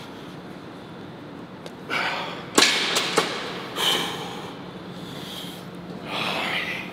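A lifter breathing hard, with a few forceful exhales, while getting a pair of 110-pound dumbbells up to his shoulders for a seated press. Two sharp knocks of the heavy dumbbells come a little over two seconds in, the first being the loudest sound.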